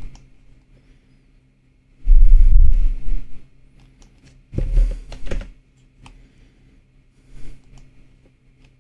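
Computer keyboard typing and mouse clicks as a value is entered in a software field, with a few loud, dull, low thumps picked up by the microphone.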